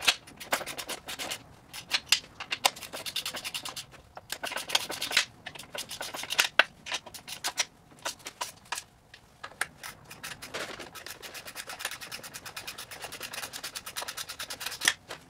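Nuts on a rear transmission mount being tightened with a 13 mm wrench, with metal clicking and rubbing: scattered clicks at first, then a fast, even run of clicks for the last five seconds or so.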